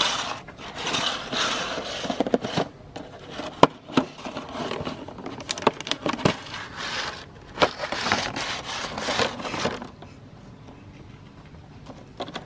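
Clear plastic clamshell container being handled and opened: crinkling and scraping of the plastic, with scattered sharp clicks and taps. It quietens over the last couple of seconds.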